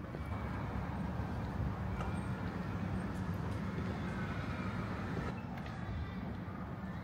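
Steady low rumble of road traffic, vehicles running along a suburban street.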